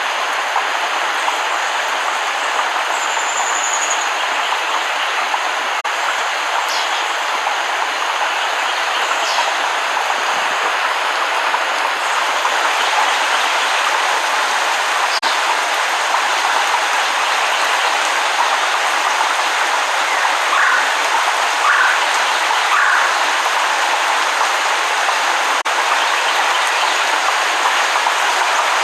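Steady rain falling in a jungle, an even hiss, with a few faint, brief high calls over it.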